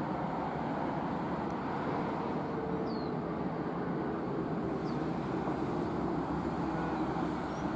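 HXD1C electric freight locomotive and its train slowing as they approach through a curve, giving a steady rumble of wheels on rail and running gear.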